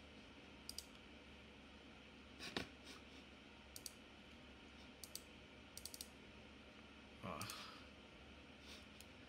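Faint computer mouse clicks over a steady low hum: single clicks here and there, the loudest about two and a half seconds in, and a quick run of three about six seconds in. A short scuffing noise comes near the end.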